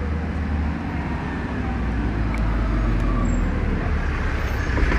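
An engine running close by: a steady low rumble that grows a little louder partway through.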